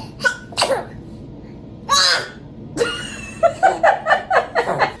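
A newborn baby's small sneezes and high-pitched squeaky vocal sounds. A sudden burst comes about two seconds in, followed by a run of short squeaks and grunts.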